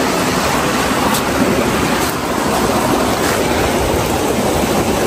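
Steady rush of flowing stream or river water, an even noise without a break.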